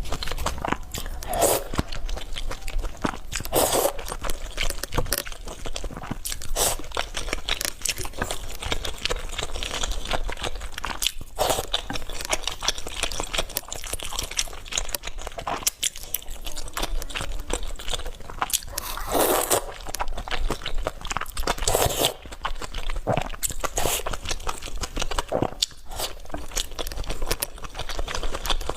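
Close-miked eating: continual wet chewing and crunching, with louder bites or mouthfuls every few seconds.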